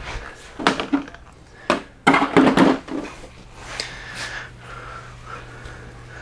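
Knocks and clatter of RC monster truck parts being handled and set down on a workbench, a cluster of them a couple of seconds in, over a steady low hum.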